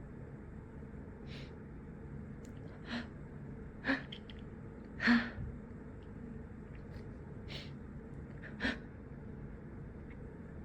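A person's short, sharp gasping intakes of breath, about half a dozen at uneven intervals, the loudest about five seconds in: the catching breaths of a sneeze building up and being held back.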